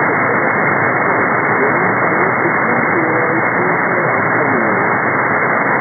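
Shortwave receiver hiss on 2749 kHz upper sideband, cut off above about 2 kHz, with a weak voice from the VCS Halifax marine weather broadcast faintly audible beneath the static.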